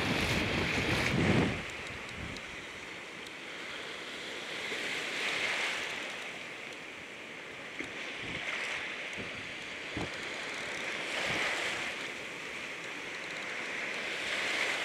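Shallow surf washing and foaming, the rush swelling and fading every few seconds. A heavier low rush of wind on the microphone in the first second and a half, and a couple of faint knocks later on.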